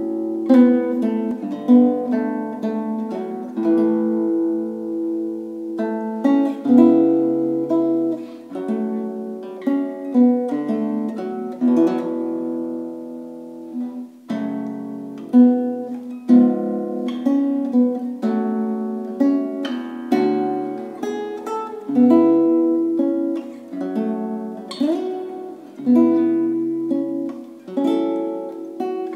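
Background music: an acoustic guitar playing plucked notes that ring out and fade.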